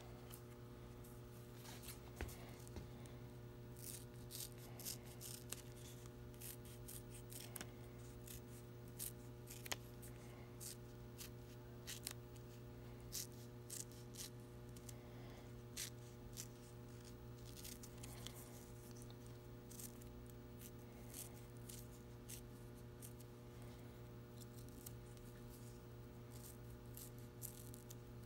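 Scissors snipping through sublimated polyester twill as applique patches are hand cut, in short, irregular snips, over a steady low hum.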